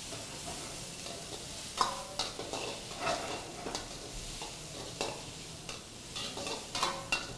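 Green capsicum strips, onion and garlic sizzling in hot oil in a wok as they are stir-fried. Irregular scrapes and clacks of the stirring utensil against the pan sound over the steady sizzle.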